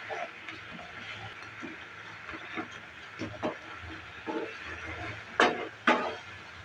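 Pineapple chutney cooking in a pan on a gas stove: a steady hiss with scattered short sounds of a spatula stirring. There are two sharp, loud knocks about half a second apart, about five seconds in.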